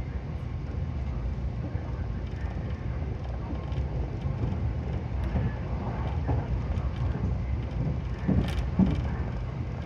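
Nankai 50000 series Rapi:t limited express running at speed, heard from inside the passenger cabin: a steady low rumble, with two brief knocks near the end.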